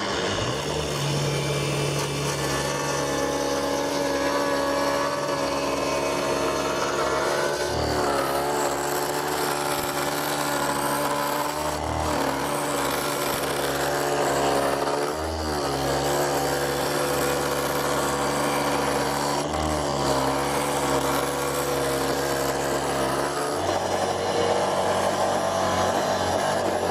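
Angle grinder running steadily while working wood, its motor pitch dipping briefly about four times as it loads up.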